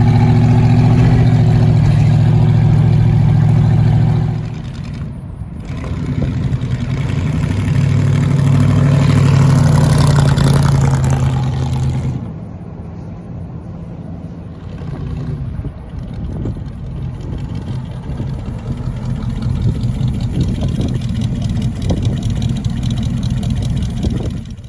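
1933 Chrysler coupe's engine running steady, dropping off briefly about four seconds in, then picking up again for several seconds before settling to a quieter run for the rest.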